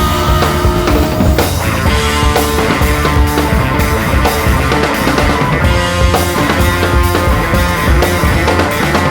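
Background rock music with electric guitar and drum kit and a steady beat.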